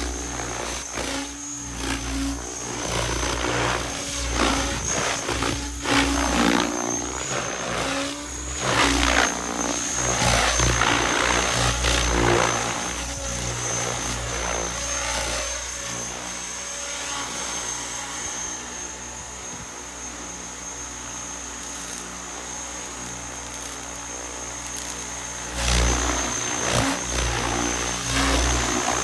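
Electric RC helicopter, a Mikado LOGO 480 XXtreme, flying at low head speed: a steady rotor hum with a high motor whine. It swells louder several times as it passes close and is quieter through the middle.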